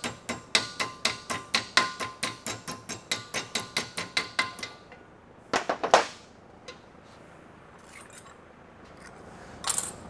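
Hammer striking a sheet-metal patch backed by a body dolly, folding over the patch's lip: quick, even blows, about four a second, each with a metallic ring. The hammering stops a little before halfway, with a few louder clanks soon after and one more knock near the end.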